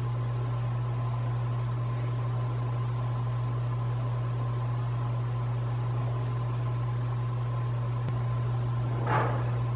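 A steady low hum with a faint, even, higher-pitched whine above it. A short burst of sound comes about nine seconds in.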